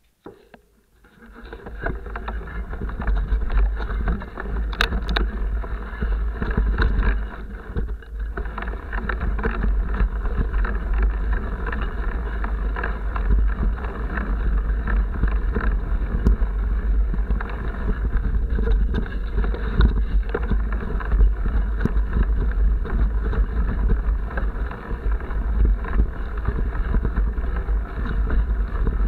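Mountain bike riding a muddy dirt forest trail: a heavy low rumble of wind and vibration on the bike-mounted camera's microphone, with tyre noise and frequent rattles and knocks from the bike over bumps. Nearly silent at the start, it builds within the first two seconds as the bike gets going.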